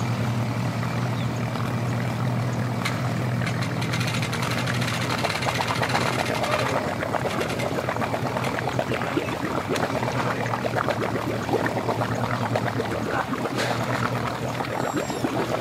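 Yamaha 250 outboard motor on a bass boat running in gear to power the boat onto its trailer: a steady low engine hum, stronger in the first few seconds, under the splash and churn of its propeller wash.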